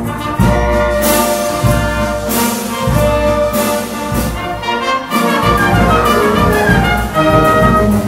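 Youth symphonic wind band playing, with the brass to the fore and loud accented strikes every second or so.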